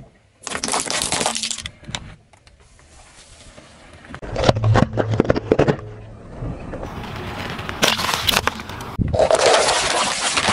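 A car tyre rolling slowly over small objects on asphalt and crushing them, in several separate bursts of sharp cracks and crunches with quieter gaps between: plastic balls popping and raw carrots snapping under the wheel.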